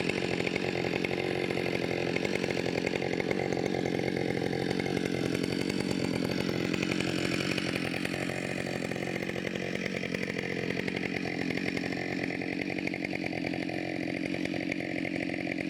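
Husqvarna 572 XP chainsaw (70.6 cc) with a 24-inch bar running steadily under load while ripping a vertical edging cut along a log.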